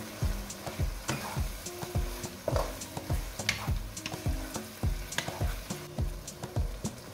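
Wooden spatula stirring and scraping through a saucy shrimp and tofu stir-fry in a nonstick wok, with the sauce sizzling. Background music with a steady beat plays underneath.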